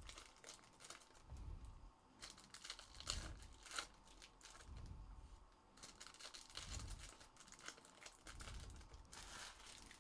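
Foil-wrapped trading-card packs crinkling as they are handled, in several short spells of crackling with pauses between, along with a few soft low thumps.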